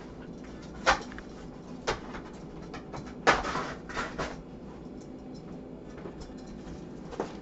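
A large cardboard shipping box being cut open and handled: a few sharp knocks and bumps of cardboard, one followed by a short scrape or tear.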